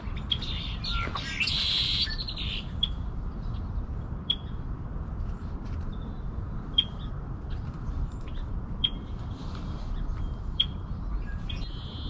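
Red-winged blackbird calling: a buzzy trill about a second and a half in, then short sharp call notes repeated every couple of seconds, over a low steady background rumble.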